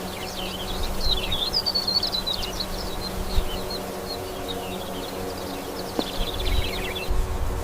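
Many small birds chirping and twittering in quick, high-pitched calls over a steady background hiss. About seven seconds in it cuts to a steady buzzing like flies.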